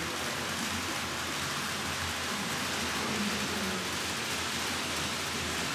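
Steady hissing rumble of a model train running along its track, with a faint murmur of voices underneath.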